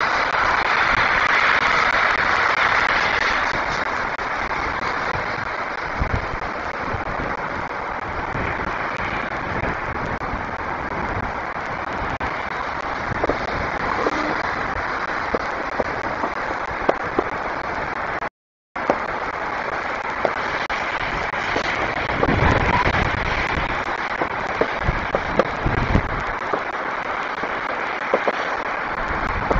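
Distant fireworks going off irregularly, single sharp pops and a few deeper thumps, over a steady hiss.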